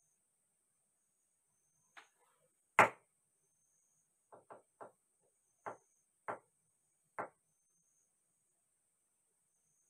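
Sharp taps on a wooden chessboard: a faint one about two seconds in and a loud knock just after, then a quick run of three and three more spaced well under a second apart.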